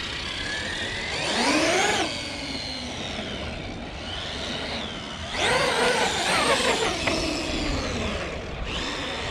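Traxxas X-Maxx 8S RC monster truck's electric motor and geared drivetrain whining up in pitch as it accelerates: once about a second in and again, louder, about five seconds in. The gear noise sounds a little tight on the new drivetrain.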